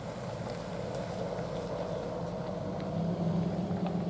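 A steady engine hum: a low, even drone that gets slightly louder about three seconds in.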